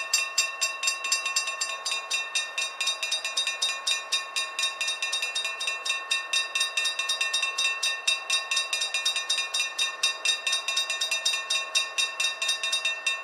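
Dutch level-crossing warning bells ringing in rapid, evenly spaced strikes as the barrier booms lower, warning of an approaching train. The ringing stops abruptly near the end, once the booms are fully down.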